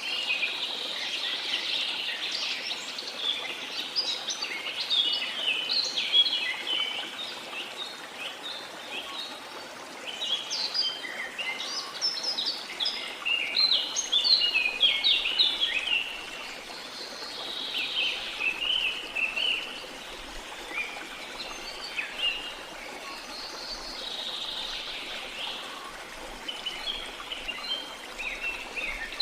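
Several birds chirping and singing in quick, overlapping phrases, busy in some stretches and sparser in others, over a steady rush of running water.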